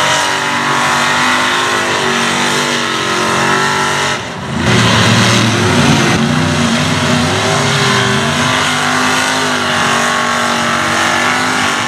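Mega truck's engine running hard and revving as it drives through mud, its pitch rising and falling. It drops briefly about four seconds in, then comes back louder.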